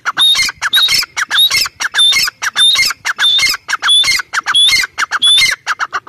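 Grey francolin calling loudly: a run of harsh, ringing notes repeated about twice a second, which stops abruptly at the end.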